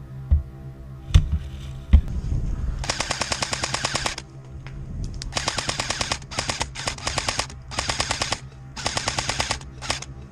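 Airsoft electric rifles (AEGs) firing on full auto in about six short bursts of rapid clicking, from about three seconds in to near the end. In the first two seconds there are a few heavy thumps.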